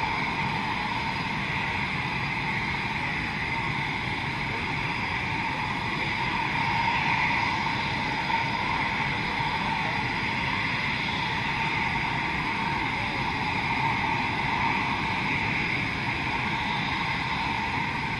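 Eurofighter Typhoons' twin EJ200 turbofan engines running at ground idle, a steady jet rumble with a high turbine whine over it.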